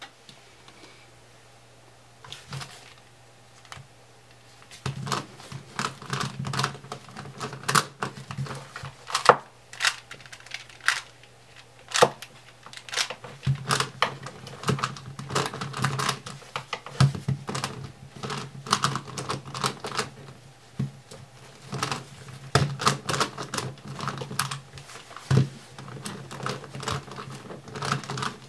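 A Rex Cube, a plastic corner-turning twisty puzzle, being turned rapidly by hand: dense, irregular clicking and clacking of its pieces. It starts sparse about two seconds in and gets busy from about five seconds, over a faint steady low hum.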